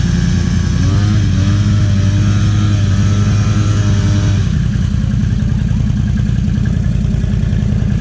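An ATV engine revving: the pitch climbs about a second in, is held high for about three seconds, then drops back to a lower, rougher running note.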